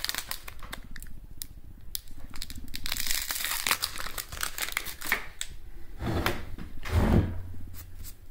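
Crinkling and crackling of a peeled-off strip of clear plastic packing tape, stiff with dried grout, being crumpled and handled in the hand, in quick irregular crackles with a louder rustle about seven seconds in.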